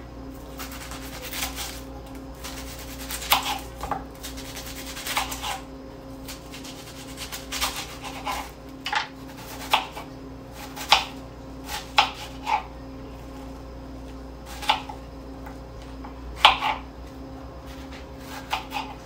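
Chef's knife slicing and dicing a red onion on a cutting board: irregular knocks of the blade striking the board, with a few sharper, louder chops.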